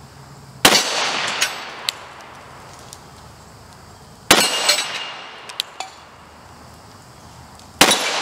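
Three single pistol shots from a Glock 41 in .45 ACP, about three and a half seconds apart, each with a ringing tail. After each shot come a few short metallic clanks from the AR-500 steel target and its swinging plates being hit.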